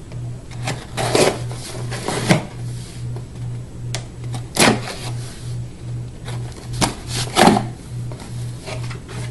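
Cardboard shipping package being handled and opened: a series of irregular scrapes and rustles, with a few louder ones about a second in, near the middle and again a little later. Under them runs a low hum that pulses about twice a second.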